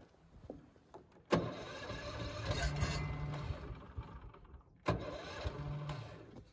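The kart's small single-cylinder gasoline engine running up in two bursts. The first starts suddenly and lasts about three seconds, and after a short drop a second lasts about a second and a half.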